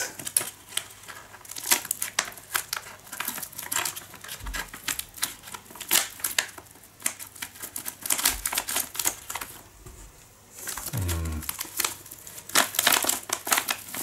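Scissors snipping across the top of a plastic ziplock drink pouch: a run of short, sharp cuts mixed with the crinkle of the packaging, with a short pause a little after two-thirds of the way through.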